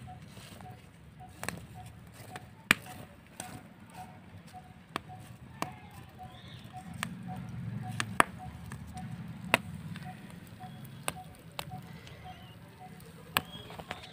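Small open fire of paper and twigs crackling, with about a dozen sharp, irregular pops, while quail eggs roast in it. Under the pops runs a faint chirp, repeating about three times a second.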